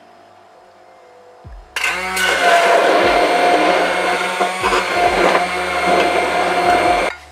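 Electric stick blender running in a glass jug, switched on about two seconds in with a steady motor whine and switched off abruptly near the end.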